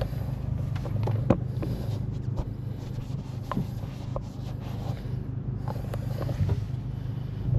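Car engine idling, a steady low hum heard from inside the cabin, with scattered light clicks and taps over it.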